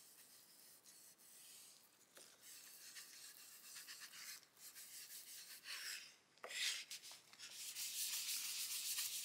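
A rag rubbing over a wooden board in wiping strokes, faint and separate at first, then steady for the last couple of seconds.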